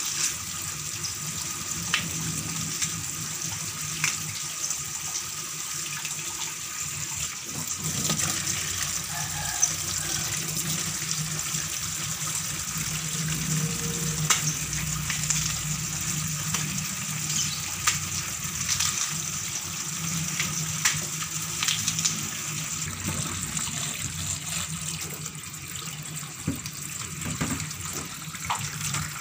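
Kitchen tap running a steady stream into a stainless steel sink, splashing over water spinach being rinsed, with now and then a light knock or clatter.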